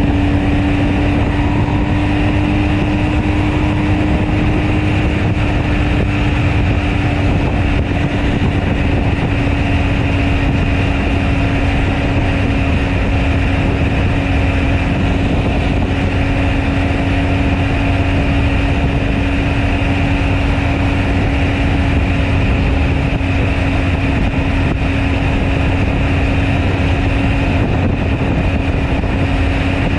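BMW R 1250 GS Adventure's boxer-twin engine running at a steady cruise under way, its note easing slightly a few seconds in and then holding, over a continuous rush of wind and road noise.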